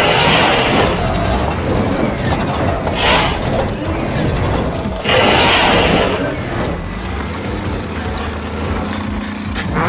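Cartoon vehicle and machinery sound effects: a low engine rumble with three noisy bursts, near the start, about three seconds in and about five seconds in.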